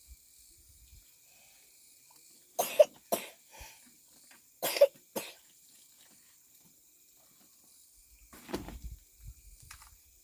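A person coughing in two short fits, each of two or three coughs, the first about two and a half seconds in and the second a couple of seconds later.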